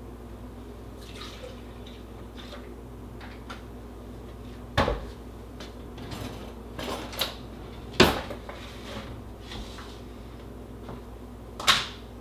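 Kitchen items being handled and set down on a countertop: a sharp knock about five seconds in, another at eight seconds and a third near the end, with lighter clatter between, over a steady low hum.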